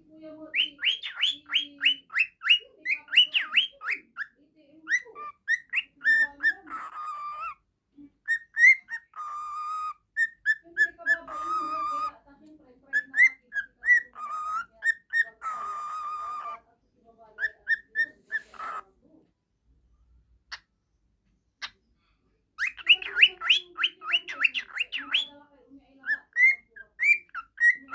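Pet parakeet whistling and chattering: fast runs of rising chirps alternate with warbling trills, with a pause of a few seconds past the middle.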